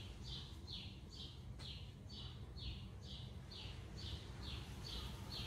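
A faint, high chirp repeated steadily about twice a second, from a small animal in the background, over a low hum.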